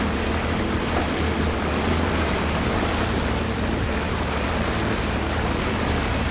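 Steady rushing noise, like wind or surf, over a low constant hum, with no distinct impacts.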